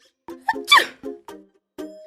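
Light background music of short plucked notes, with a brief high squeak sliding down in pitch just under a second in.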